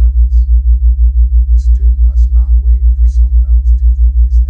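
Deep synthetic tone pulsing evenly about six times a second, a theta-rate isochronic tone, with a very faint subliminal voice beneath it.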